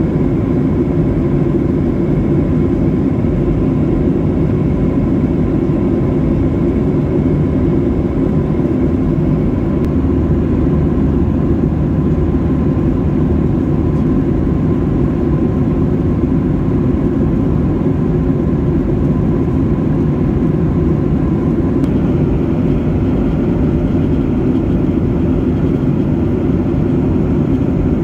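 Cabin noise of a Boeing 737-800 in flight: a steady, even low rush of engine and airflow noise, with faint steady tones above it.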